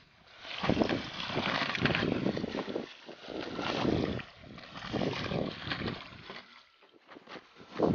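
An armored catfish (pleco) speared on a bowfishing arrow thrashes at the water's surface, throwing up splashes in several surges about a second long, as it is pulled in on the line.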